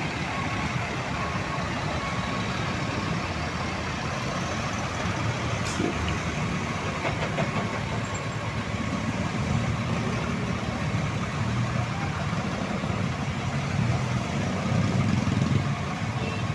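Large bus's diesel engine running steadily at low revs, getting somewhat louder near the end.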